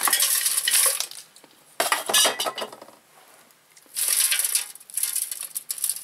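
Loose insulating fill poured from a glass jar into the metal can body of a homemade muffle furnace, in several hissing, trickling pours separated by short pauses.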